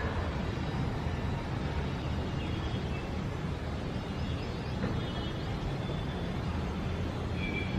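Steady outdoor city ambience: a low traffic rumble, with a few faint, short, high bird chirps over it.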